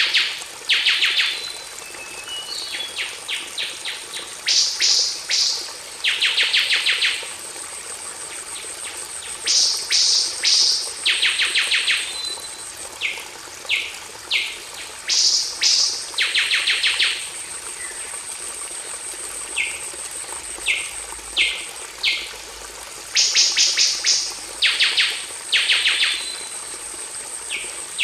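A songbird singing short, fast trills, often two or three in quick succession with pauses of a few seconds between, over a steady high insect tone and a hiss of flowing water: a bird-song tutor recording (masteran).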